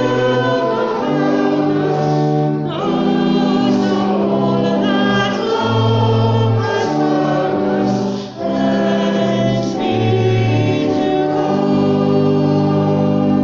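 A hymn sung by many voices with accompaniment, moving from chord to chord, ending on a long held chord near the end.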